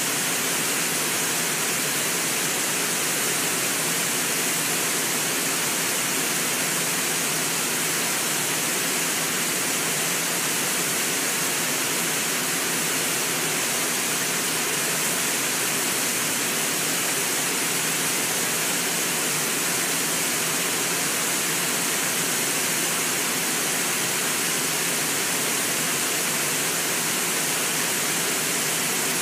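Whitewater of the Brooks River rushing below Brooks Falls, a steady, unbroken hiss strongest in the high range.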